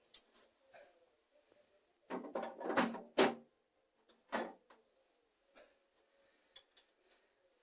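Clatter of tools and metal tap parts being handled: a cluster of knocks and clinks about two seconds in ending in a sharp clink, another knock a second later, and faint scattered ticks.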